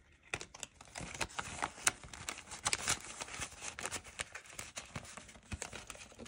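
Paper bills rustling and a clear plastic binder pouch crinkling as cash is pushed into it by hand, in many irregular small crackles.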